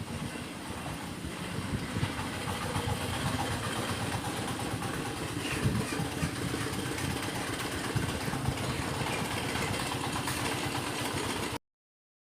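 Steady low rumble of an engine running, which cuts off abruptly near the end.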